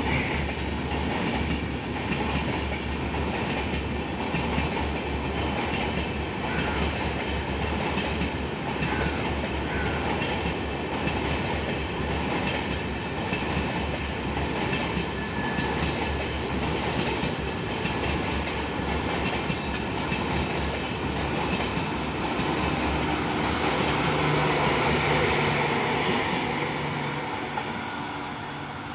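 LHB passenger coaches rolling past over a steel girder rail bridge: a steady rumble of wheels on rail with frequent clicks over the rail joints. A steady hum swells in near the end as the train moves away and fades.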